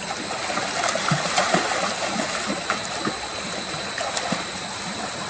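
Shallow water sloshing and splashing, with many small irregular splashes and trickles.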